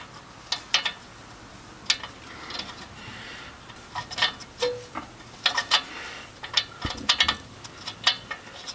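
Wrench and O2 sensor socket clicking and clinking against metal while an exhaust oxygen sensor is turned out in a tight space. The clicks are sharp and irregular, often several in quick succession.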